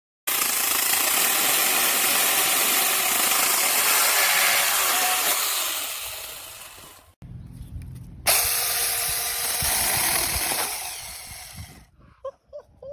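Seesii DL07 8-inch cordless brushless mini chainsaw running in two runs. Each starts suddenly and winds down as it fades out. The first lasts about seven seconds and the second about three.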